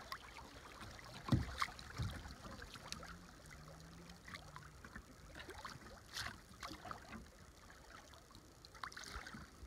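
Kayak on rippling river water: small splashes, drips and water lapping at the hull, with two low knocks against the boat about a second and two seconds in.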